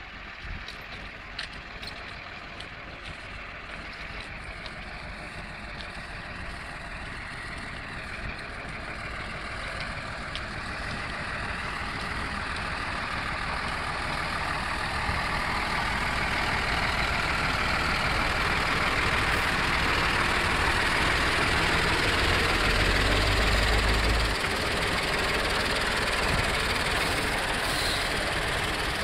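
Sewer vacuum truck running, its engine and suction pump making a steady, noisy drone that grows gradually louder throughout.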